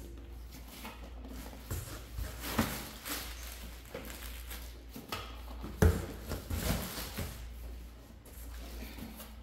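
Hands handling boxed merchandise in a cardboard shipping carton lined with bubble wrap: rustling of plastic wrap and bubble wrap, with irregular knocks of boxes being set down and slid against each other, the sharpest about six seconds in.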